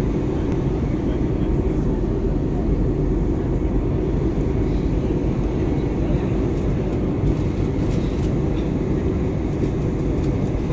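Steady cabin noise of an airliner in flight, engine and airflow noise heard from inside the passenger cabin, deep and even with no changes.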